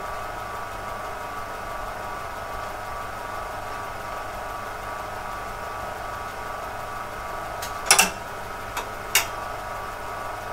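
Steady hum of the running PDP-11/34A and RX02 8-inch floppy disk drive. A few sharp clacks come about eight and nine seconds in, the first the loudest, as the RX02 drive tries to read the disk in answer to the DY boot command.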